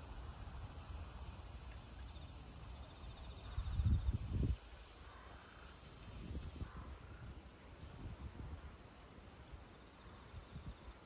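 Faint outdoor ambience with insects chirping in short, rapid trills. About four seconds in comes a brief, louder low rumble.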